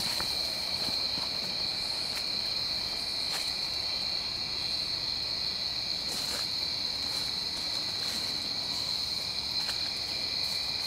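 Night chorus of crickets: a continuous high trill in two steady pitches, unbroken throughout.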